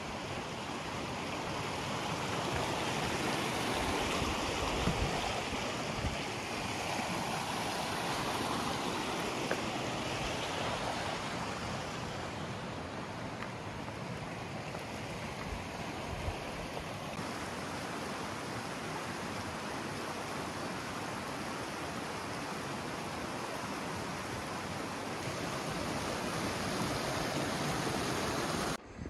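Steady rushing of a flowing stream, cutting off suddenly near the end.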